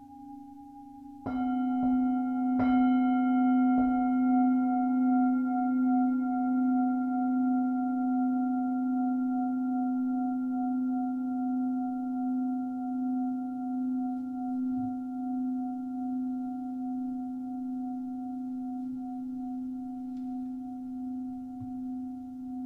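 A singing bowl struck three times in quick succession, then left ringing with a long, slowly fading, wavering hum.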